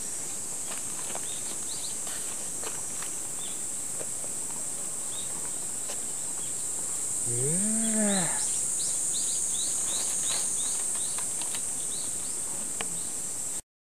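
Steady, high-pitched drone of insects, with short bird chirps in the second half and one drawn-out, rising-and-falling animal call about eight seconds in. The sound cuts off suddenly near the end.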